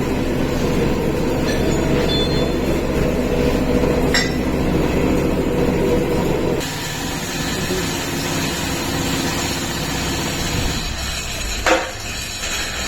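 Eicher Pro 1080 XP tipper's diesel engine and gearbox running with a steady mechanical drone. The sound drops and changes character about six and a half seconds in. A short metallic clink comes near the end.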